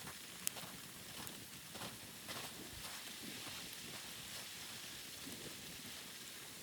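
Faint outdoor hiss with scattered soft rustles and crackles, and one sharp click about half a second in.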